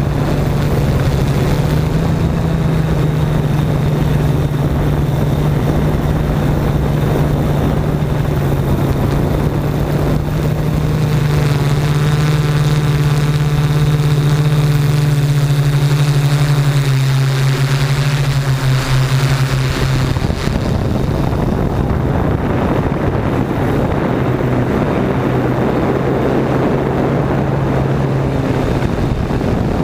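Camera drone's motors and propellers running, a steady buzz heard from the drone's own camera. An extra set of higher tones comes in about a third of the way in, then slides down and fades about two-thirds of the way through.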